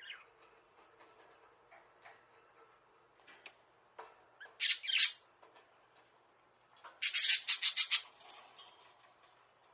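Budgerigars giving harsh squawks: two short rasping calls about halfway through, then a rapid chattering run of about ten raspy pulses lasting about a second. Faint clicks and scratches fall between them.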